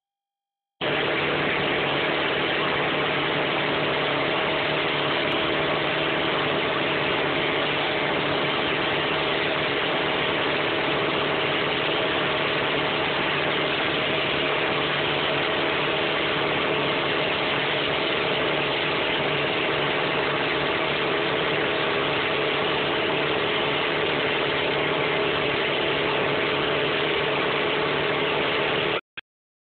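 Steady rush of river water pouring over a low dam, mixed with the steady hum of engines on a crane and drilling barge working on the dam. It starts about a second in and cuts off just before the end.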